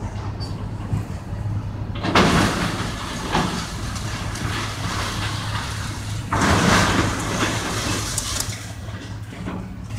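Demolition excavator at work: a steady low diesel engine hum, with two sudden crashes of breaking, falling debris, about two seconds in and about six seconds in, each dying away over a second or so.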